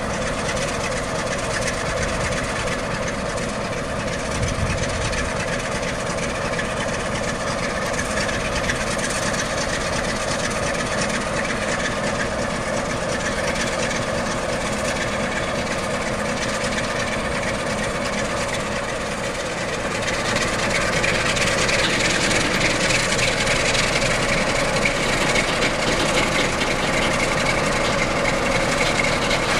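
Sulzer diesel engine of an Electroputere LDE2100 (060-DA) diesel-electric locomotive running steadily at close range. About two-thirds of the way through it grows louder, with a higher whine coming in.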